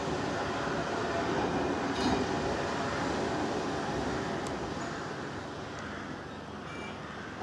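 Snaefell Mountain Railway electric tramcar No. 1 rolling slowly along the track, its wheels running on the rails with a steady rumble. There is a sharp click about two seconds in and another about four and a half seconds in, and the sound eases off a little in the second half.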